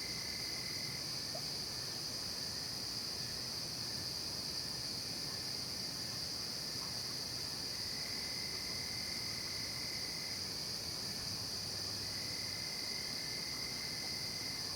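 Night chorus of crickets: a steady high-pitched trilling, with a lower trill that comes and goes a few times.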